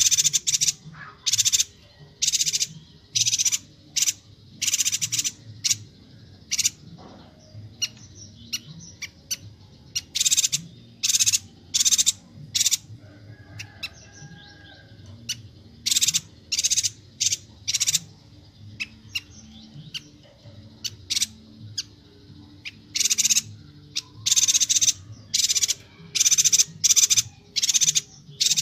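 Chestnut-crested yuhina calling: short, rapid, buzzy notes fired in quick clusters, with a few quieter seconds around the middle.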